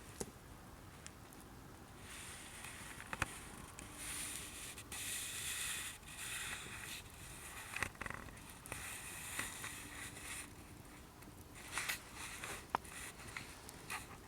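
Wood campfire crackling, with a sharp pop about four times. Between the pops come stretches of rustling and hissing.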